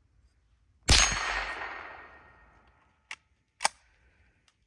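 A single shot from a Winchester Model 77 .22 Long Rifle semi-automatic rifle about a second in, its echo dying away over about a second and a half. About two seconds later come two short, sharp clicks, half a second apart.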